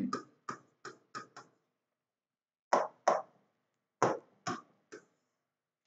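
A pen tapping and sliding on an interactive whiteboard's screen while writing: about ten short clicks in irregular groups, a quick run in the first second and a half, then a pair and a few more taps later on.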